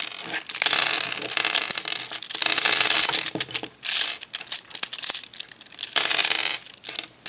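Plastic pieces of a V-Cube 4 puzzle cube being pried apart and handled: an irregular run of small clicks and rattles, with several stretches of plastic scraping on plastic.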